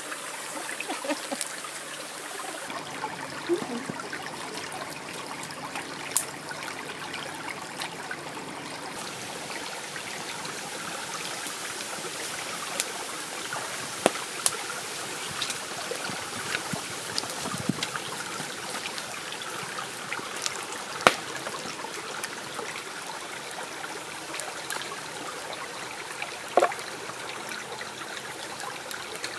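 A small stream trickling steadily, with scattered sharp crackles and pops from the wood fire under oysters grilling on a wire rack, a few of them louder.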